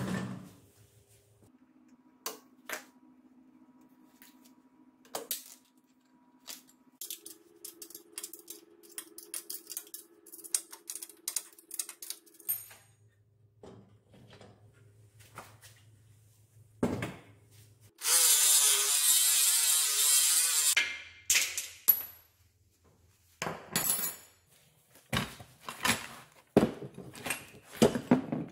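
Workshop assembly sounds: metal parts and tools clinking and knocking, with a power tool running for about three seconds just past the middle.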